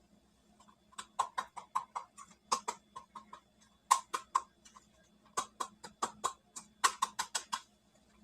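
Small hard plastic dollhouse toy pieces clicking and tapping as they are handled: a run of sharp, crisp clicks in irregular clusters.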